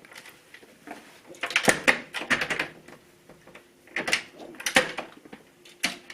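Door handle being worked on a door, the latch clicking and rattling in three short bursts.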